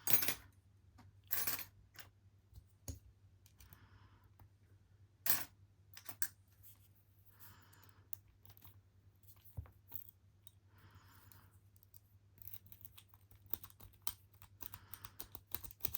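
Lock-picking tools clicking and scraping in the keyway of a 58mm brass padlock as it is raked, with a few louder metal clacks and a quick run of light ticks near the end. The lock stays shut.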